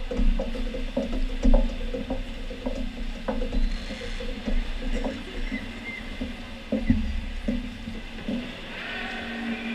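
Indoor swimming-pool ambience during a freestyle race: swimmers splashing and spectator noise echoing around the hall, over a steady low hum with scattered knocks.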